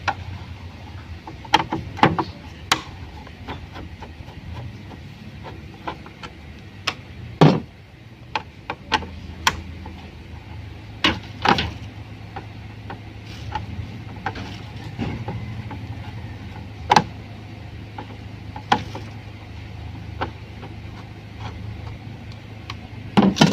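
Irregular sharp clicks and knocks of a hand tool and screws against the metal housing of a window-type air conditioner as its screws are taken out, with one louder knock about a third of the way in. A steady low hum runs underneath.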